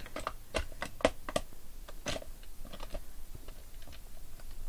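Hard plastic parts of a Power Rangers Megazord action-figure toy clicking and clacking as it is handled and repositioned: an irregular run of quick clicks with a few louder knocks, the loudest about a second in and about two seconds in.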